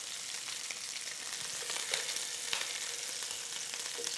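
Beef short ribs frying in an electric skillet: a steady, soft sizzle with a few faint crackles about two seconds in.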